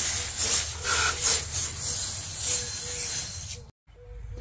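Water jetting from a garden hose spray nozzle onto an engine bay, a steady hiss that swells and eases as the spray plays over the parts. It stops abruptly about three and a half seconds in.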